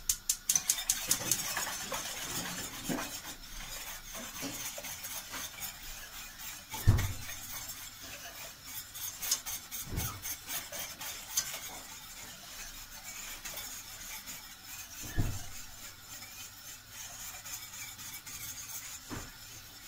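Gas hob igniter clicking rapidly for about the first second and a half. After that, a spoon stirring milk in a stainless steel pot, scraping steadily with a few sharp knocks against the pot, the loudest about seven seconds in.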